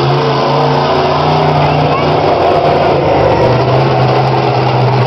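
Bigfoot monster truck's engine running loud and steady, its pitch dipping slightly about three seconds in.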